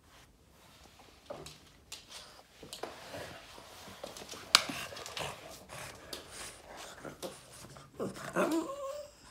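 Boston terrier grumbling and whining for attention in a run of short throaty noises. About halfway there is one sharp, loud snap, and near the end a longer pitched whine that bends up and down.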